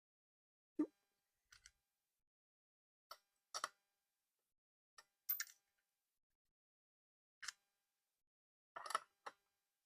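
Scattered clicks and clinks of metal hand tools being picked up and set down, about nine separate short knocks with quiet gaps between, the first a duller knock; the sound of rummaging for a socket.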